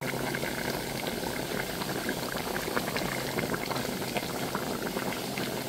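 Chicken and potato curry bubbling at a simmer in a large metal pot: a dense, steady run of small pops and blips, with a steady low hum underneath.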